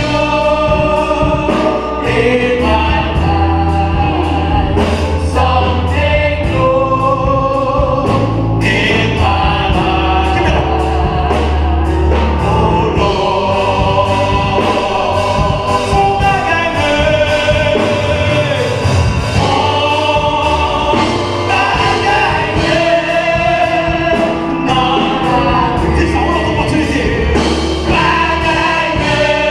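Gospel choir singing a worship song, with bass notes and a steady beat underneath.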